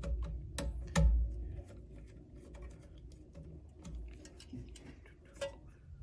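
A small screwdriver clicking and tapping against a screw terminal on a circuit board as a wire is clamped in, with light handling noise. There are a few sharp clicks, the loudest with a low knock about a second in, and another click near the end.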